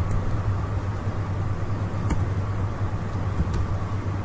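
Steady low background hum, with a few faint clicks from a computer keyboard as code is typed.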